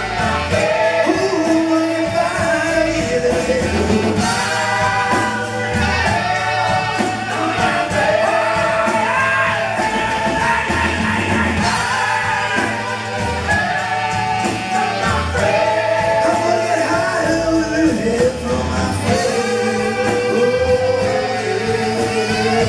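Live rock band playing, with drums and electric guitar, under a lead singer and a gospel-style backing chorus.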